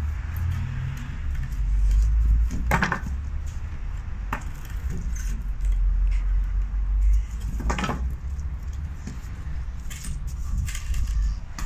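A tree branch held crosswise in a dog's mouth knocking and scraping against a door frame and brick wall, with two longer scrapes about three and eight seconds in and scattered small knocks, over a steady low rumble.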